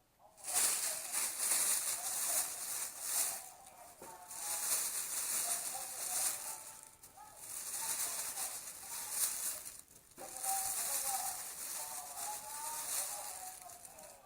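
Newspaper burning as fuel in a fire grill: a crackling hiss that swells and fades in four waves of a few seconds each.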